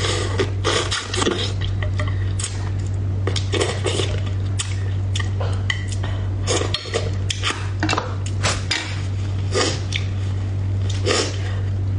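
Close-miked eating of spicy braised bighead carp head: chewing and mouth sounds, with wooden chopsticks clicking against the bowl, in quick irregular clicks over a steady low hum.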